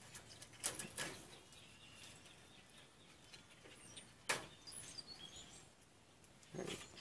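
Faint handling noise from a toaster's heating element, its thin resistance wire and mica card being fingered: light scattered clicks and rustles, with a sharper click about four seconds in.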